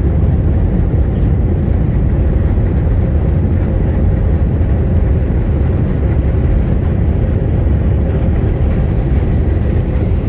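Jet airliner cabin noise while the plane rolls on the ground: a steady low rumble with a faint steady hum running through it.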